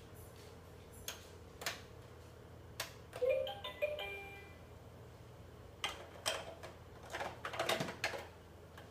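Plastic clicks and clacks of a letter being fitted into an electronic toy. About three seconds in there is a short electronic chime.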